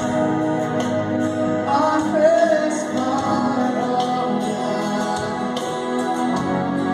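Gospel-style worship music: held chords, with a wordless sung line rising and falling a couple of seconds in.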